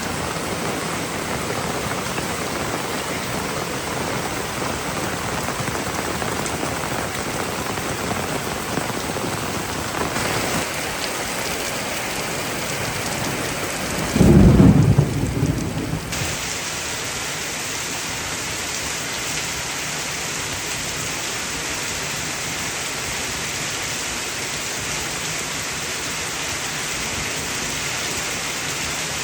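Heavy rain pouring steadily, with one loud thunderclap about halfway through that rumbles low for about two seconds.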